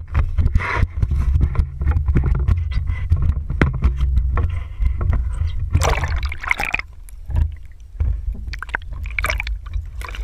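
Sounds of a small boat on the water: a steady low rumble with scattered knocks and scrapes, and a splashy rush of water about six seconds in.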